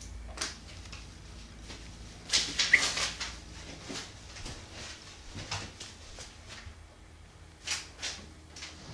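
Cats pouncing and scrambling after a laser dot on carpet and a carpeted cat-tree post: scattered thumps and scratching, with a busy flurry about two to three seconds in and two more thumps near the end.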